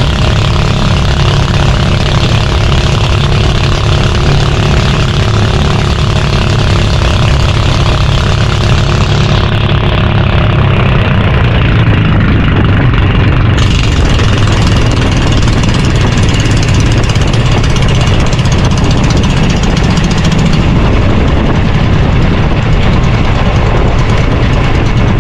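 Small fishing boat's (bangka's) engine running steadily under way during a speed test. A higher steady hum within the engine sound fades out about ten seconds in, leaving the low engine sound.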